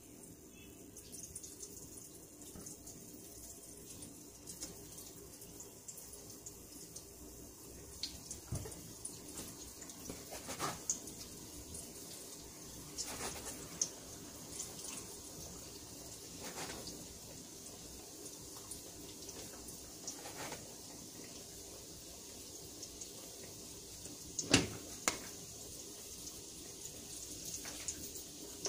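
Pieces of odading dough frying in hot oil in a pan, a steady faint sizzle, with scattered taps and clicks from a plastic dough scraper cutting dough on a mat and one sharp knock near the end.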